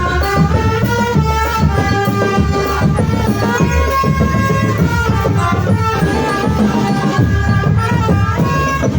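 Marching drum band playing a tune: drums beating steadily under a melody of held notes.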